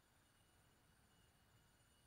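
Near silence: faint outdoor background with thin, steady high-pitched tones.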